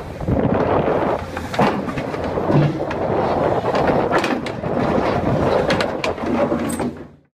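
Excavator at close range: a low steady hum under a rough rumble, with repeated metallic clanks and knocks. The sound stops abruptly near the end.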